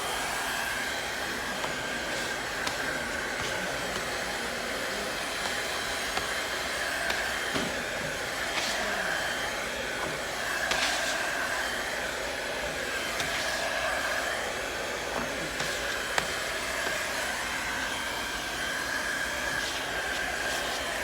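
Hand-held electric hot-air blower running steadily with a slightly wavering whine, heating a freshly re-rolled wallpaper seam. A few light clicks sound over it.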